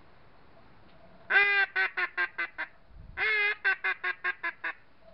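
Mallard hen quacking, close by: two series about two seconds apart, each a long quack followed by a quick run of shorter quacks that trail off.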